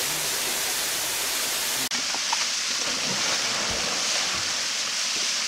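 Steady rush of a waterfall pouring into a rocky pool, with a few faint splashes. The sound changes abruptly about two seconds in.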